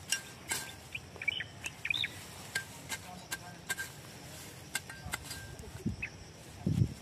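Meat cleaver cutting and scraping through grass at the roots: a string of short, sharp cuts. Small birds chirp in the background, and there are a couple of dull thumps near the end.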